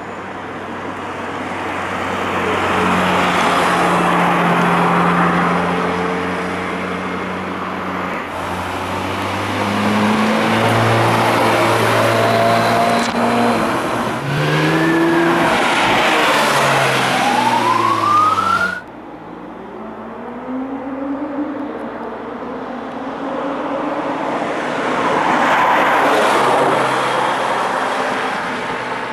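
Porsche 911 GT2 RS twin-turbo flat-six sports cars accelerating hard past one after another, the engine note swelling as each approaches and fading as it goes by. One pass has its pitch climbing steeply under acceleration before cutting off suddenly, and the sound changes abruptly several times where separate passes are joined.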